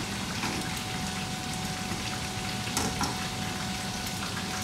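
Chicken kara-age deep-frying in a wok of hot oil: a steady sizzle.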